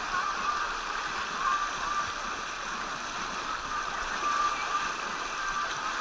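Water rushing steadily down the start of an open water slide's chute, an even splashing hiss with no pauses.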